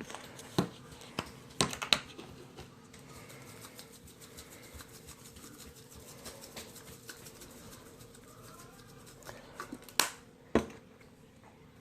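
Scattered light clicks and taps from seasoning a whole raw chicken by hand, with two sharper clicks about ten seconds in.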